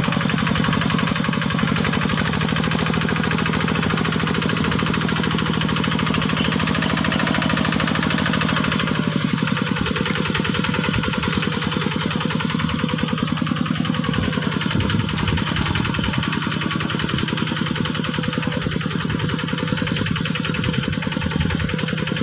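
Diesel engine of a heavy machine (a drilling rig or excavator being moved) running steadily with a fast, even clatter, its note shifting slightly about nine seconds in.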